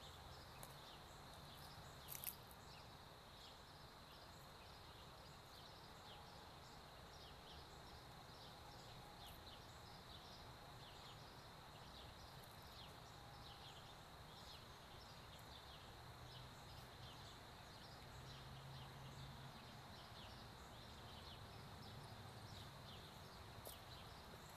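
Near silence: faint outdoor ambience with a steady high hum and many short, high chirps throughout. A single brief click about two seconds in.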